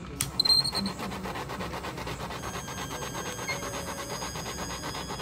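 A tumbler cup turner's small motor slowly rotating an epoxy-coated tumbler, making a steady, even rubbing sound. A brief louder sound comes about half a second in.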